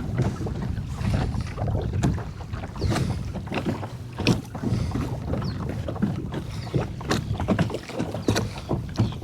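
Kayak hull with water sloshing and small knocks of gear against it, over a steady low rumble of wind on the microphone.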